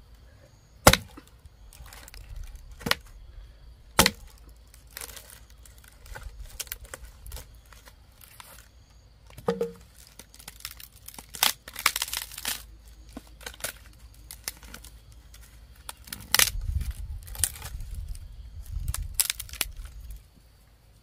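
A hatchet blade striking dry firewood poles, with a few sharp knocks, and the wood cracking and splintering as it is split lengthwise and pried apart.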